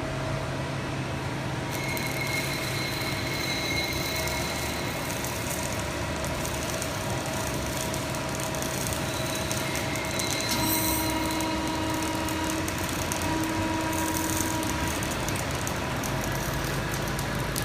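Hydraulic CNC press brake running: a steady hum with high whining tones that come in about two seconds in, and a lower whine from about ten and a half to fifteen seconds in.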